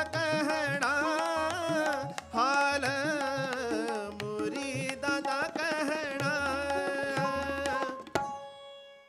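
A man singing a Sikh shabad with tabla, its low drum strokes gliding up in pitch, and sitar accompaniment. The music stops abruptly about eight seconds in, leaving strings ringing as they fade.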